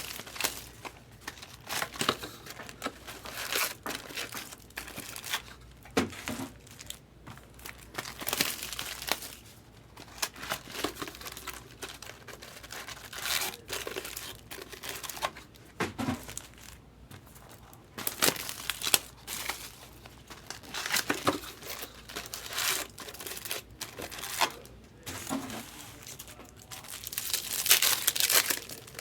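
Wrappers of 2023 Topps Chrome Platinum Anniversary trading-card packs crinkling and tearing open, in irregular bursts of rustling.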